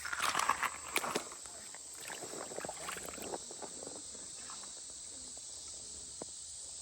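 Outdoor creek-side ambience: scuffing and rustling with a few sharp clicks for about the first second, then only occasional small ticks over a steady high-pitched insect drone.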